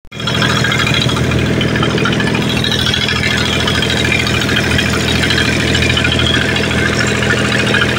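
A fishing boat's engine running steadily with a low, even hum.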